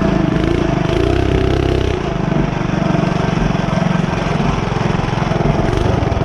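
Mini bike's small engine running steadily while riding on a sandy trail, its note easing briefly about two seconds in before settling again.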